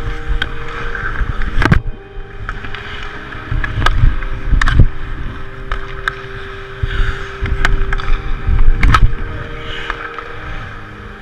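Ice hockey practice heard from a camera worn by a skater: skates carving and gliding on the ice, with wind rumbling on the microphone. Several sharp clacks of sticks and puck come through, and a steady low hum sits underneath.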